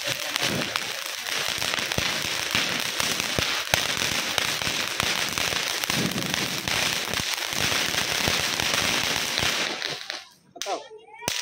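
Ground fountain firework (anar) spraying sparks with a steady hiss and fine crackling, dying out about ten seconds in. Voices near the end.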